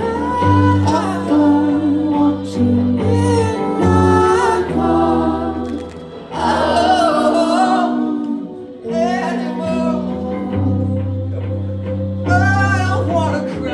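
Indie rock band playing live: sung vocals over electric guitars and steady low bass notes, with two short breaks in the singing about six and nine seconds in.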